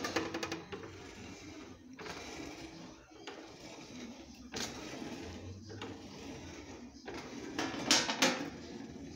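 Sheet-metal lid of a kite-line coating box being handled: a metallic rattle as it is lifted at the start, then a loud clatter about eight seconds in as it is set back on the metal box, over a steady background noise.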